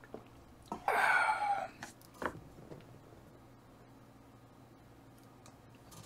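Eating sounds of a person having sashimi: a loud breathy rush of about a second near the start, a sharp click a moment later, then quiet.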